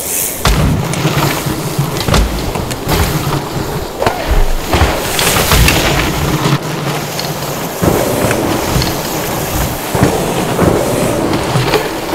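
Mountain bike ridden fast down a dirt trail: a steady rumble and hiss of knobby tyres on the ground, broken by several sharp knocks and clatters as the bike hits bumps and lands.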